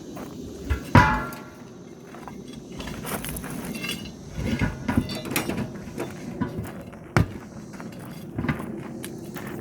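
Scattered metal clanks and knocks from tire-repair work, with tools and wheel parts being handled and struck. The loudest is a ringing metallic strike about a second in, and more knocks follow a few seconds later.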